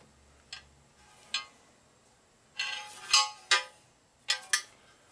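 Aluminium Harley inner primary cover being handled on a steel hydraulic press bed: a series of sharp metallic clinks and knocks, some ringing briefly, with the loudest cluster about midway.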